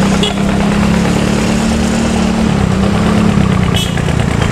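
Bus engine running steadily with a strong low drone, its pitch dipping slightly about halfway through; a brief click near the end.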